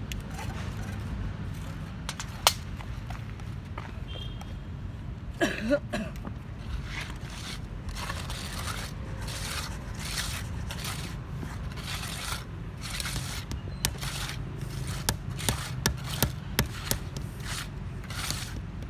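Hand tools scraping and dragging over the paving in repeated strokes that come faster and sharper towards the end, with a few sharp knocks, over a low steady rumble.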